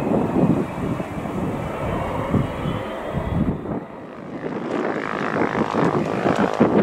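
Airliner engines running: a steady rushing noise with a faint falling whine over the first few seconds. It changes about three and a half seconds in, dips, then swells again toward the end.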